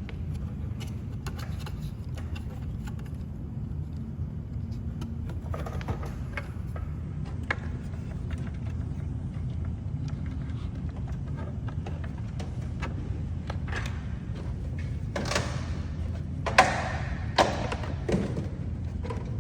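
Plastic turn-signal and side-camera housing being handled and worked into place by hand: scattered small clicks, then several louder scrapes and knocks about three seconds before the end. A steady low hum runs underneath.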